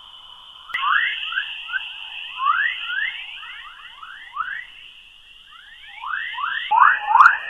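Sonified radio waves from Earth's magnetosphere, electromagnetic signals converted to sound: a stream of quick rising chirps, several a second, like birdsong, over a steady high hiss. The texture shifts abruptly twice, and the chirps grow louder and denser near the end.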